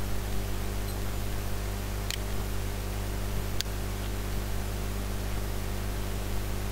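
Steady microphone hiss with a low electrical hum, and two faint clicks about two and three and a half seconds in.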